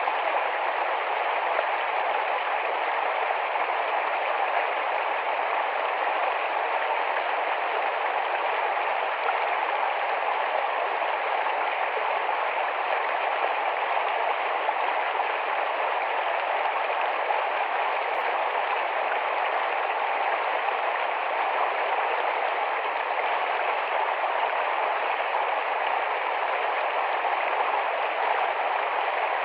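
Shallow, rapid forest stream rushing and babbling over rocks in a steady, unbroken flow.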